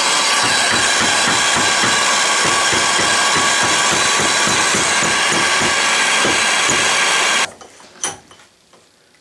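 Plumber's air-acetylene (Prestolite-type) torch flame burning steadily, a loud hiss with a rapid low flutter, heating a steel crank handle to red heat for bending. It cuts off abruptly about seven and a half seconds in, followed by a single short knock.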